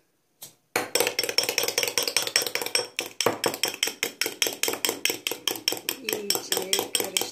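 Metal fork whipping thick glue slime round a glass bowl, clinking against the glass about eight times a second, starting about a second in with a brief pause midway.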